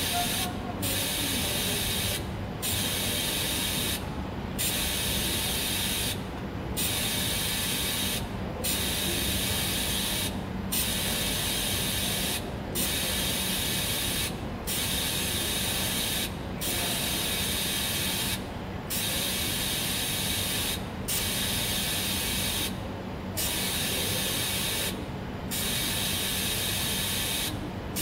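TIG (gas tungsten arc) welding arc on a 316 stainless steel tube, a steady hiss over a low hum that breaks off briefly about every two seconds.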